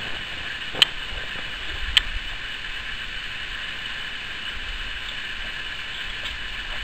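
Two sharp clicks about a second apart from a Slavia 618 spring-piston break-barrel air rifle being handled, as it is cocked and latched for a shot, over a steady background hiss.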